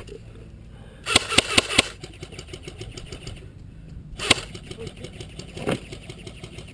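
Beta Project Magpul Tactical AK airsoft electric rifle firing a quick string of about five shots about a second in, then a single shot a few seconds later. A duller pop follows near the end, over a steady low rumble.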